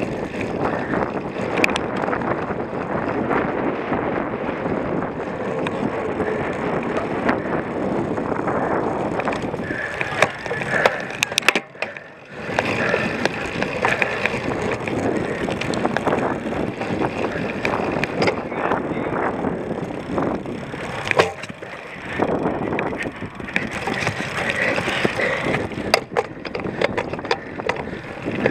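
Cyclocross bike ridden hard over rough ground: continuous tyre noise with the frame and parts rattling and knocking over bumps. The sound drops away briefly about twelve seconds in and again about twenty-one seconds in.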